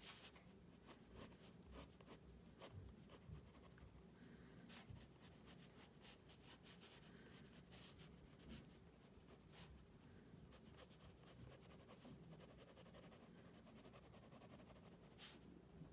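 Faint scratching of a pen on paper in many quick, short strokes as lines are drawn and shaded in, with a few louder scratches.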